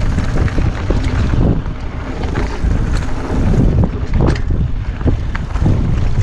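Wind buffeting a GoPro microphone on a mountain bike ridden fast down a dirt trail, with rattles and sharp knocks from the bike over rough, jumpy ground.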